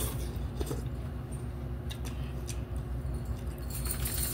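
Close-up eating sounds: noodles being slurped, chewing and mouth smacking, with small clicks of utensils against paper noodle cups, over a steady low hum. A longer slurp comes near the end.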